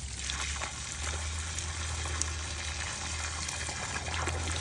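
Water running in a steady stream.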